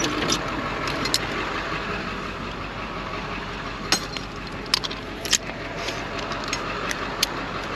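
Steady hum of the tow truck's idling engine, with a few sharp metallic clinks as the wheel-lift straps and hooks are handled and clipped on.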